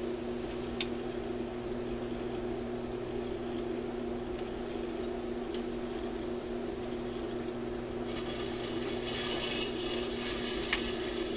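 Steady mains hum and hiss from the Newcomb TR-1656-M record player's amplifier, with a few faint clicks. About eight seconds in, a louder, brighter hiss comes in.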